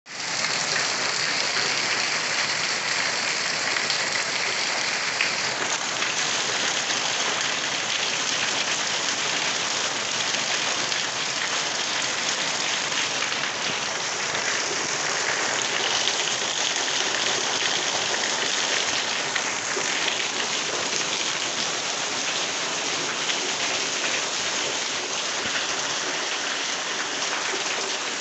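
Heavy rain falling steadily on a corrugated roof and running off its edge in streams: a constant, even hiss.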